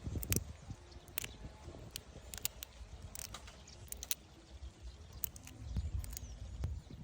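Irregular light clicks and knocks, a dozen or so scattered over a low rumble.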